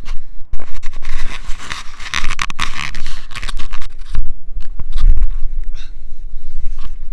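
Handling noise on a body-worn action camera as the wearer runs carrying a wooden pole frame. A loud scraping rustle gives way, about four seconds in, to heavy low thumps and knocks.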